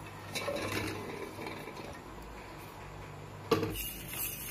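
Quiet kitchen background with a single sharp click or knock about three and a half seconds in.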